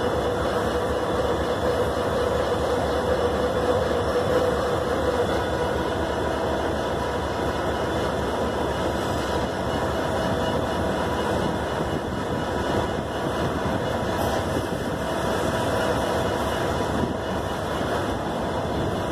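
Double-stack intermodal freight train's well cars rolling past: a steady rumble of steel wheels on the rails.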